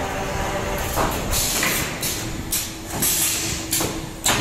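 Wire-forming and welding machines running in a workshop: a steady machine hum with several short, sharp hisses of air at irregular intervals.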